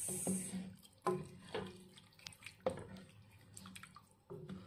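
A wooden spatula moving through chicken pieces in a pot of thick tomato sauce, giving scattered clicks and wet squelches. A hiss stops about half a second in.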